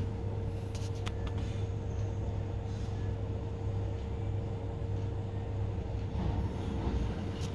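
Steady low machine hum with a faint steady whine over it, and a few light clicks in the first second and a half.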